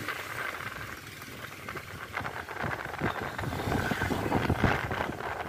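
Vehicle running along a road, heard from on board: steady engine and road noise with irregular knocks, getting louder about two seconds in.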